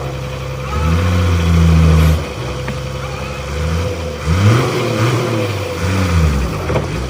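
A heavy machine's engine running, held at a steady pitch for about two seconds and then revved up and down over and over, roughly once a second.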